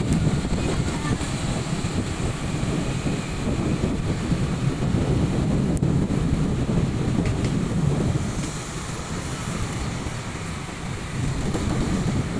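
Wind rushing over the microphone, mixed with the engine and road noise of a motorcycle riding along a street.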